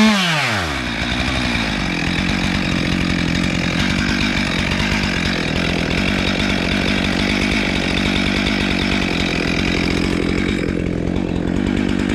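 Stihl chainsaw on an Alaskan chainsaw mill ripping a spruce log into boards. The engine runs at full throttle, and its pitch drops sharply in the first second as the chain bites into the wood. It then runs steadily under load, cutting lengthwise through the log.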